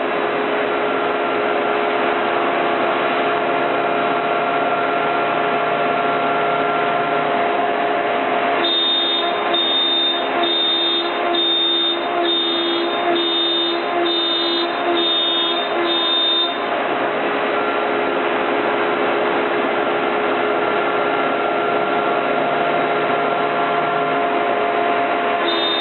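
CNC router spindle running with a 1/4-inch bit cutting MDF, a loud steady whine. For several seconds in the middle a higher pulsing tone repeats under twice a second, as the machine makes a run of short moves.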